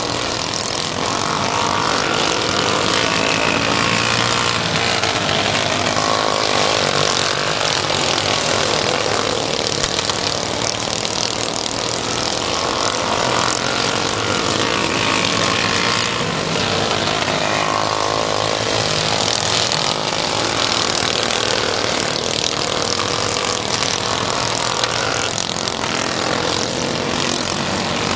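Several modified mini dwarf race cars running laps on a small dirt oval. Their engines run loud and without a break, the pitch rising and falling again and again as the cars rev through the turns.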